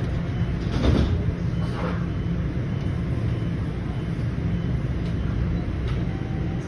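Toronto Rocket subway car standing at the platform with its doors just closed: a steady low hum from the car's equipment, with two brief hissing bursts about a second apart near the start.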